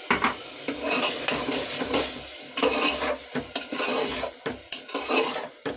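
A steel spoon stirring and scraping green chickpeas through a sizzling tomato-onion masala in an aluminium pressure cooker, in a run of irregular scrapes against the pot. The chickpeas are being sautéd in masala that has cooked until the oil separates.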